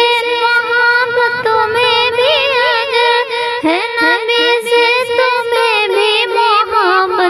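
Wordless sung interlude of an Urdu nazm: a high female voice sings a wavering, ornamented melody over a steady held drone.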